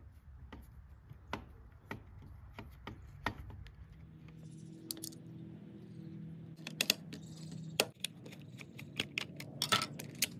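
Small clicks and taps of a screwdriver backing the case screws out of an old Weller soldering gun, with the screws and the gun's hard casing being handled. The clicks come thick and fast near the end.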